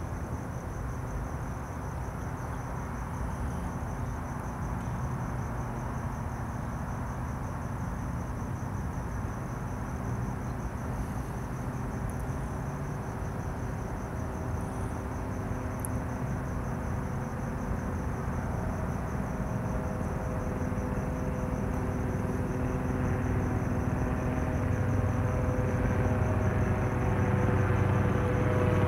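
Crickets chirping steadily over a low outdoor rumble, with a distant engine drone that grows louder over the second half.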